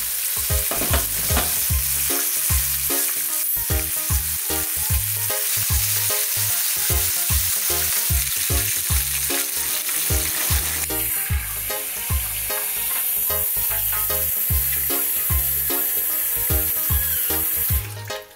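Pieces of horse-eye jack sizzling as they fry in hot oil in a pan: a steady crackling hiss that cuts off shortly before the end. A background music bass line with a beat runs underneath.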